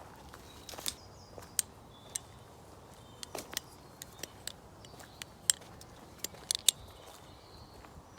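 Balisong (butterfly knife) being flipped: irregular sharp clicks and taps as the handles swing and knock together, about a dozen spread over several seconds. The loudest come about one and a half and five and a half seconds in.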